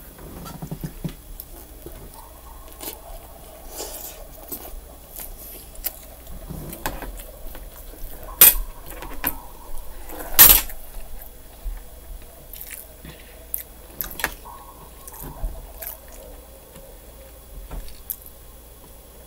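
Scattered small clicks and knocks of a person eating a breakfast of pancakes and waffles, likely utensils against a plate, with two louder sharp knocks about eight and a half and ten and a half seconds in.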